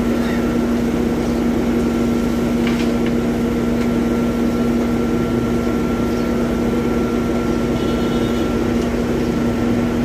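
Diesel engines of an asphalt paver and a dump truck running steadily while asphalt is unloaded into the paver's hopper: an even engine drone with a constant pitched hum and a faint high whine.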